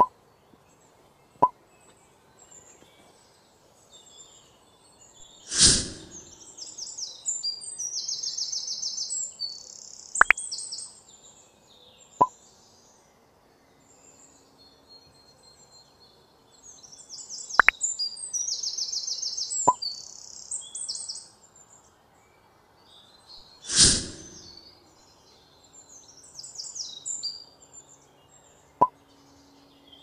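Birds chirping in bursts of quick high trills, with a few sharp clicks and two dull thuds in between.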